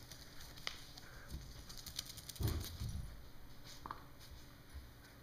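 Corgi puppy's claws clicking and scrabbling on a tile floor as he wriggles under a couch, with two dull thumps about halfway through.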